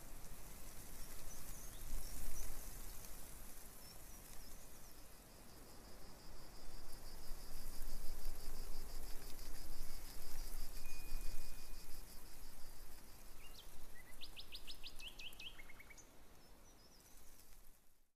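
Outdoor nature ambience of birdsong and insects over a steady hiss. A high, rapidly pulsing trill runs through the middle, and a quick series of bird chirps, falling in pitch, comes near the end before the sound fades out.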